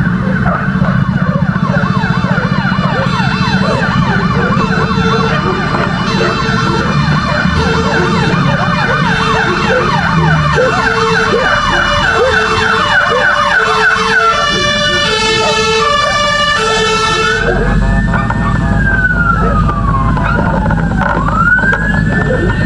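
Several fire-engine sirens sounding at once: a fast yelp and a stepped two-tone for most of the time, then a slow wail that falls and rises again in the second half. A low engine rumble underneath grows stronger near the end.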